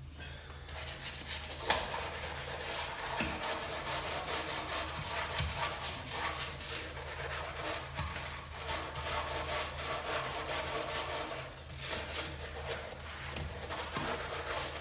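Urinal brush scrubbing the foam-sprayed drain housing of a waterless urinal, with quick, scratchy back-and-forth bristle strokes. A steady low hum runs underneath.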